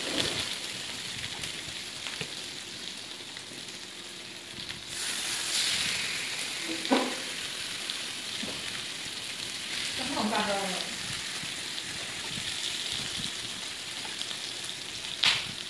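Food frying on an electric tabletop grill plate: a steady sizzle that grows louder about five seconds in.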